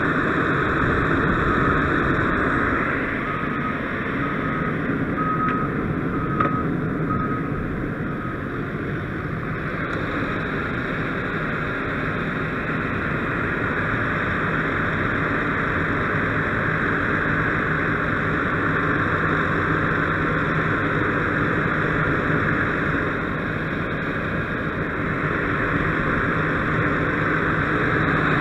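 Fire engine's diesel engine running steadily close by, at pumping speed. A run of faint, evenly spaced beeps sounds from about three to eight seconds in.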